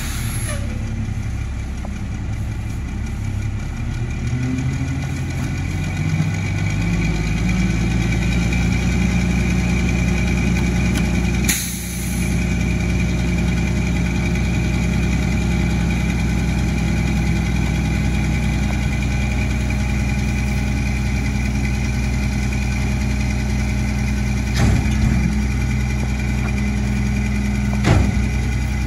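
Mack MR garbage truck's engine idling, then running up over a few seconds to a steady higher speed that drives the McNeilus rear loader's hydraulic packer. A sharp burst about twelve seconds in and two short knocks near the end stand out over the engine as bulk furniture is loaded into the hopper.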